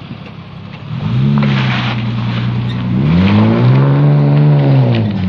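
Nissan Patrol engine accelerating through a straight-through exhaust. The exhaust note rises about a second in and holds, then climbs again around three seconds and drops back near the end.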